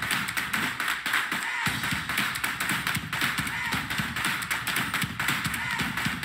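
Dancers' shoes and hands tapping and stomping on a wooden stage and school desks, many sharp taps a second with heavier thuds among them, over a steady wash of audience cheering.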